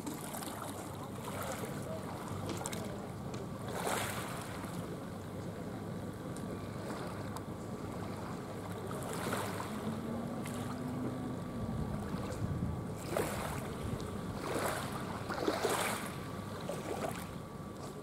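Small sea waves washing on a pebble beach, with wind on the microphone; the wash swells a few times, briefly louder each time.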